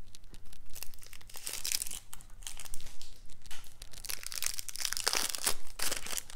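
Plastic shrink-wrap crinkling and tearing as it is peeled off a deck of cards, in irregular bursts of crackle, loudest about one and a half and five seconds in.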